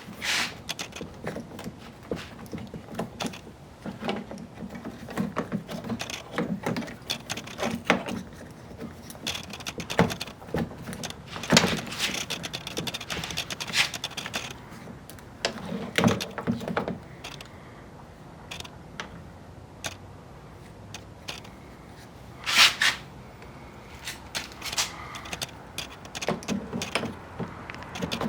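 Irregular clicks, knocks and scraping as a car's exterior door handle assembly is worked back into its slots in the door, with a few sharper knocks among them.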